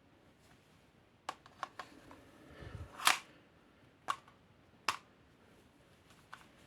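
Sharp mechanical clicks from handling an ASG CZ-75D Compact spring airsoft pistol, about seven in all and irregularly spaced. The loudest comes about three seconds in, just after a low rumble.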